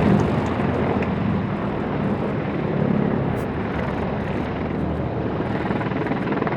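Mi-28 attack helicopters in flight, their rotors and turboshaft engines giving a steady, heavy drone. It is loudest at the start and eases slightly as they pull apart in the break-away manoeuvre.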